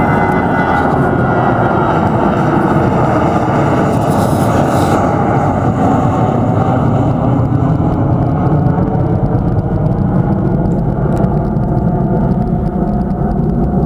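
Airbus A319 twin-engine jet airliner climbing after takeoff, its engines at climb thrust making a loud, steady jet noise. The higher hiss fades after about five seconds as the plane draws away, leaving the low part of the sound.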